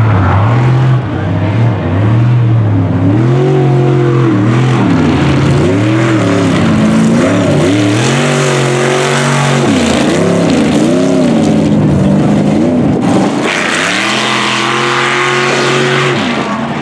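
Mega truck's engine revving hard as it races across dirt, its pitch rising and falling again and again with each stab of the throttle.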